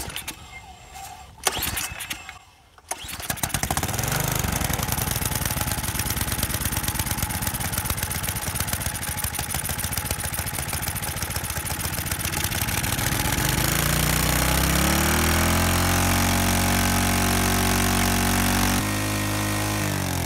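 Small single-cylinder snowblower engine pull-started with its recoil rope: a few clacks from the pulls, then it catches about three seconds in and runs steadily. It revs up past the middle and holds high, then its speed drops near the end. It still starts and runs with gallium left in its cylinder and carburetor.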